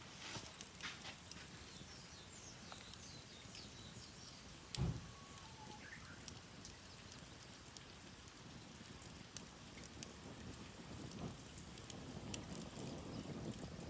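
Faint crackling of a wood fire: scattered, irregular sharp pops over a soft hiss, with a dull low thump about five seconds in.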